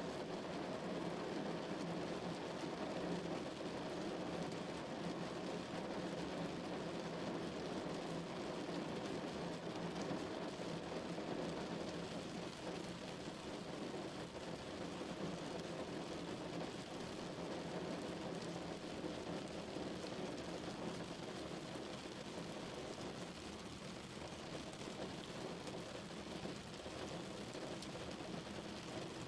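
Heavy rain drumming steadily on a car's body, a dense, even patter.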